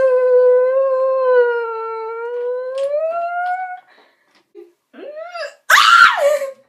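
A girl's long, drawn-out whine of fright, held on one pitch for about four seconds and rising at the end. After a short pause comes a brief rising whimper, then a loud, shrill cry near the end.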